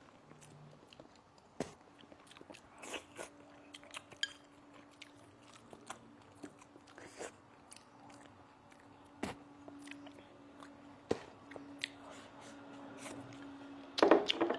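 A person eating braised fish, with quiet chewing and mouth sounds and scattered small clicks. A faint steady hum runs underneath, and a louder voiced sound comes near the end.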